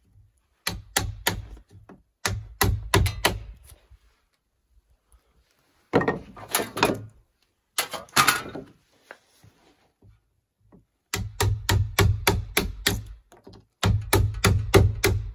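A hammer striking a wood chisel to cut a notch into a log post. The strikes come in runs of about four a second, broken by short pauses, with two rougher stretches in the middle.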